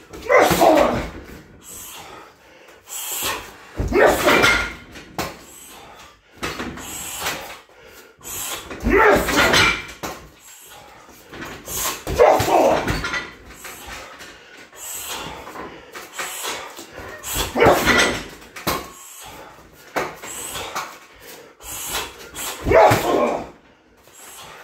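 A 60 kg Everlast heavy bag on a freestanding steel stand, struck by flurries of kicks, knees and punches that come in bursts about every four to five seconds. The fighter gives a loud shout or grunt with each flurry, and the stand knocks between strikes.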